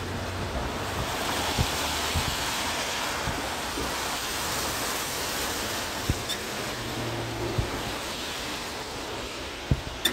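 Steady hiss of city street noise, mostly tyres on wet, rain-slicked pavement, swelling over the first few seconds and easing toward the end, with a few dull thumps.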